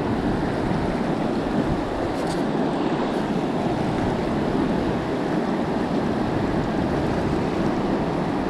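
River water rushing over rocks in a fast riffle, a steady, even rush with no let-up.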